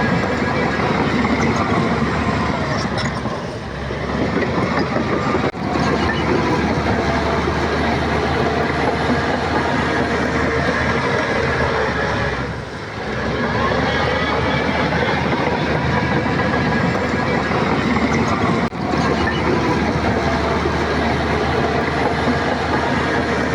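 Shantui crawler bulldozer working: its diesel engine runs steadily with the rattle of its steel tracks, and the sound dips briefly a few times.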